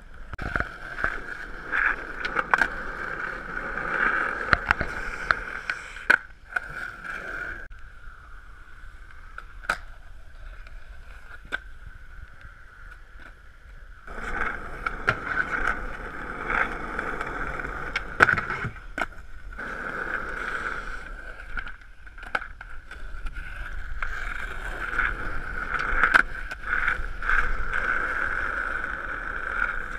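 Skateboard wheels rolling over concrete and asphalt, a steady whirring hum, broken again and again by sharp clacks of the board popping and landing. The rolling drops away for several seconds in the middle, then returns.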